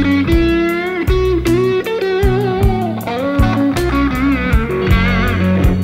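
Music: a blues electric guitar lead playing bent, wavering notes over bass and drums.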